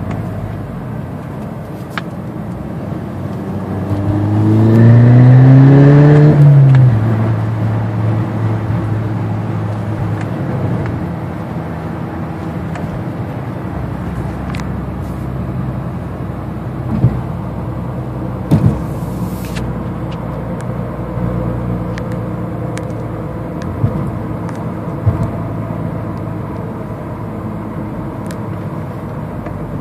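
Volkswagen Golf R's turbocharged four-cylinder engine through a 42 Draft Designs downpipe and Remus cat-back exhaust, cruising at low revs with wind noise from open windows. About four seconds in, the exhaust note swells and rises in pitch on a short burst of throttle, then drops back to a steady drone. A few short knocks come later on.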